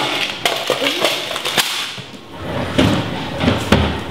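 Clicks, knocks and rustling as a small cash box and papers are handled and searched by hand, then a chair shifting and thudding as someone stands up.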